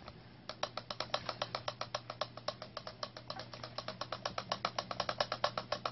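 Rapid, even mechanical clicking, about ten clicks a second, from a small ratcheting or geared mechanism. It starts about half a second in and grows slightly louder.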